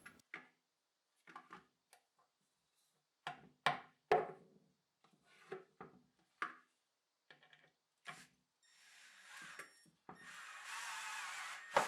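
Scattered knocks, taps and rubbing of tools and hardware on a Baltic birch plywood table top as router lift leveling feet are started and driven into pre-drilled holes. Near the end comes a steady whirring for about two seconds.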